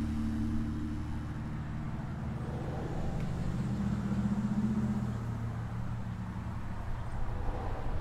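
Road traffic: passing vehicles' engines make a low hum that fades over the first second and swells again about halfway through.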